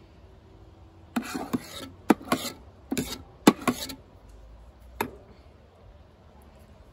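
Metal spoon scraping tomato paste out of an enamel bowl and knocking it into a glass jar: a quick run of scrapes and sharp clinks over about three seconds, then one last clink about five seconds in.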